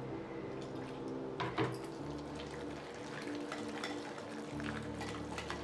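Wire whisk clicking and scraping against a glass bowl while beating a thick spinach-and-flour batter, in quick irregular strokes.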